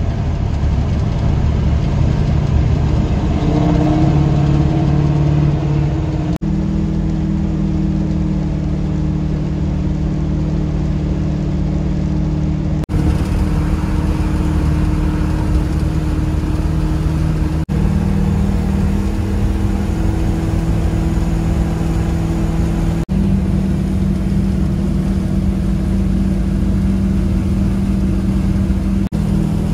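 Old Chevrolet C10 pickup cruising at highway speed, heard from inside the cab: a steady engine drone with tyre and road noise. It breaks off briefly about five times.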